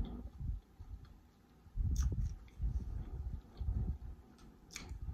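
Close-miked chewing of a crispy deep-fried prawn: irregular soft jaw thuds, with a couple of sharp crisp clicks about two seconds in and again near the end.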